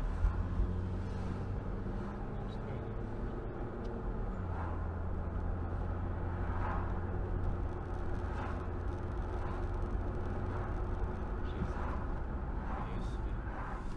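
Steady road and engine rumble of a car driving along a city street, heard from inside the cabin.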